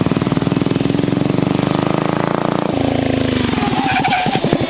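Minibike engine running hard with a fast, even exhaust pulse. About two and a half seconds in, it comes off the throttle and the pitch falls away as it winds down.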